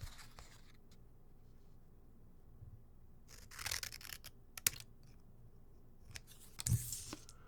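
Scissors snipping in short runs of crisp cuts. The first run comes about three and a half seconds in and ends with a sharp click, and a second run comes near the end.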